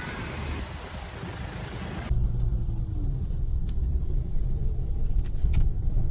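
A steady hiss cuts off abruptly about two seconds in. It gives way to a steady low rumble of a car driving.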